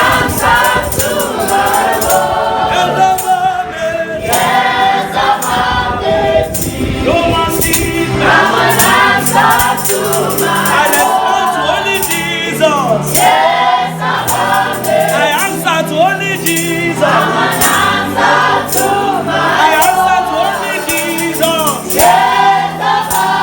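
Gospel worship song: several voices singing over a band, with a steady percussive beat and a bass line.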